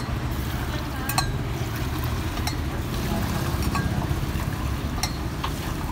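Tea being 'pulled': poured back and forth between two stainless steel mugs to mix it, the stream splashing and trickling from one mug into the other, with a few short clinks of the metal mugs. A steady low hum runs underneath.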